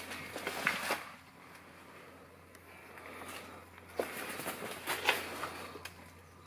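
Footsteps crunching on dry leaves and dirt: a quick run of crackling steps in the first second, quieter shuffling, then another run of steps from about four to six seconds in.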